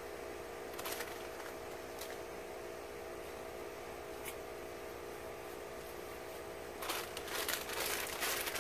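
Snack-chip bag crinkling as a hand rummages in it: a short rustle about a second in, a few faint crackles after, then steady crinkling through the last two seconds.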